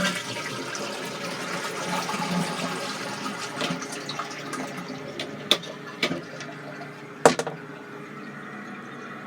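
Rushing water running steadily and easing off near the end, with a few sharp clicks about five to seven seconds in.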